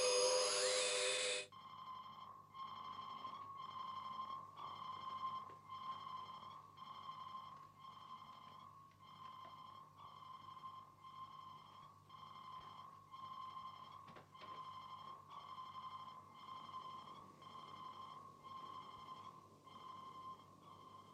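Electronic science-fiction sound effect. A flying saucer's loud, shrill multi-tone electronic sound cuts off sharply about a second and a half in. It gives way to a faint, high electronic tone pulsing in an even rhythm, like a sonar beep.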